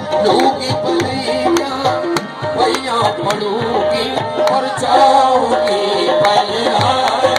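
Music: repeated drum strokes under a sustained, wavering melody.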